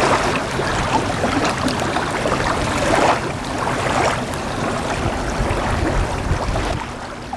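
Wind rushing and buffeting against the microphone over open lake water, with water lapping and a couple of louder washes about three and four seconds in.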